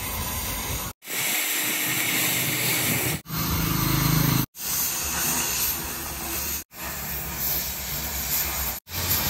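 Oxy-fuel cutting torch hissing steadily as it burns into the steel pin boss of a JCB 3DX backhoe arm to cut out the worn bush. The hiss breaks off abruptly for an instant about every two seconds.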